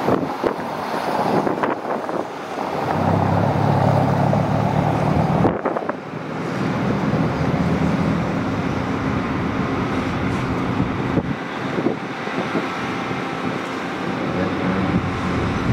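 Caterpillar 390FL hydraulic excavator's diesel engine working under load as it operates a clamshell dredging bucket. The engine note swells for a few seconds, drops off suddenly about five and a half seconds in, then labours again. A few sharp knocks come near the start.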